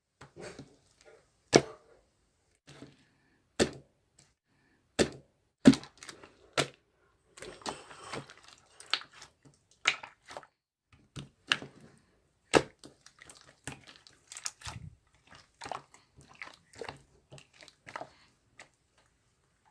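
Marbled mixed slime being squeezed and worked by hand, giving irregular sharp clicks and pops, a few of them much louder than the rest, with a short stretch of squishing about eight seconds in.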